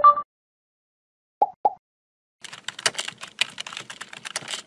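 Computer keyboard typing sound effect: a rapid run of key clicks for about two seconds in the second half. It is preceded by a short pitched blip at the start and two quick pops about a second and a half in.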